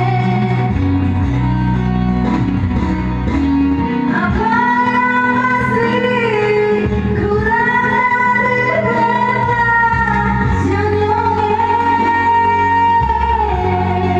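A song: a female voice singing long, held notes over a guitar and bass accompaniment.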